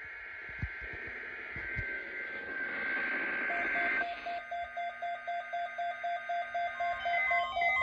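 NOAA weather radios receiving the weekly test broadcast: the first half is static hiss carrying two steady high data tones. From about halfway, the radios' alert beeps start, short pulsed tones at several pitches, about four a second, growing denser toward the end as more radios activate.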